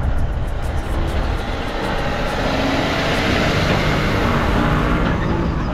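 Steady engine and road noise from a 1998 Sprinter diesel motorhome on the move, with a rushing noise that grows louder through the middle.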